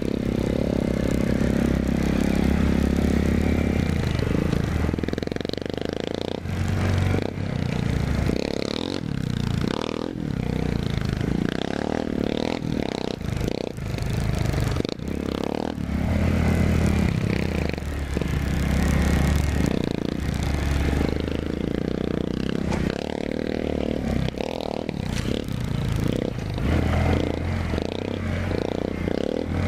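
Honda Grom's small single-cylinder four-stroke engine running on a dirt trail, holding a steady note in stretches and easing off between them, with clattering knocks from the bike jolting over rough ground.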